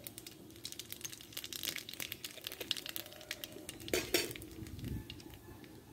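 Black cumin (nigella) seeds crackling and popping as they hit hot oil in an aluminium kadai, a dense patter of tiny clicks. About four seconds in there are two louder knocks.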